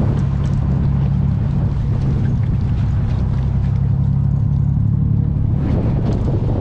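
Charter fishing boat's engine running steadily with a low, even drone.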